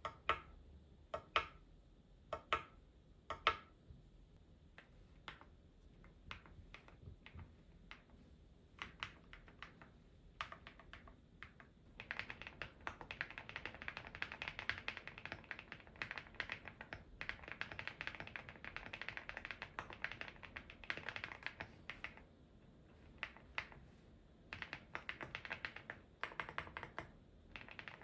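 Typing on an aluminium-cased EPOMAKER GALAXY70 mechanical keyboard with HUANO Blossom Odyssey switches: a few single, deliberate keystrokes at first, then scattered keys, then about ten seconds of fast continuous typing, a brief pause, and more typing near the end.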